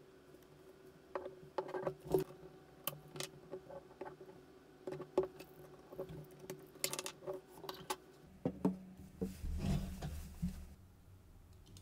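Small irregular clicks and taps of metal parts as the opened body of a Hasselblad 2000FC is handled and turned over and its rear plate is lifted off, with a short, denser clatter near the end.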